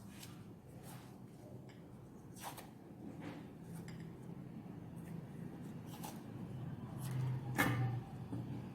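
Faint, scattered clicks and light taps of hands handling small things as seeds are placed and taped onto a hand, with one louder click near the end.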